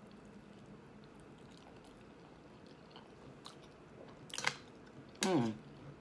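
A person chewing a mouthful of pasta and bread close to the microphone, with soft wet mouth clicks. About four seconds in there is a sharp smack, then a short hum that slides down in pitch near the end.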